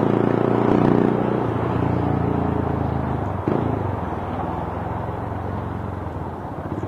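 Motorcycle engine running through an aftermarket Akrapovic exhaust pipe with a semi-big elbow, giving a smooth, deep bass note. The revs are higher for the first second and a half, then settle to a lower, steadier note, with a short click about three and a half seconds in.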